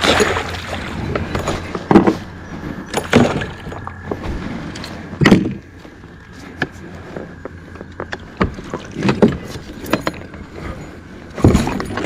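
A chain pickerel thrashing in a landing net as it is lifted from the water onto a plastic kayak: a handful of separate splashes and knocks a second or two apart, the first and loudest at the very start.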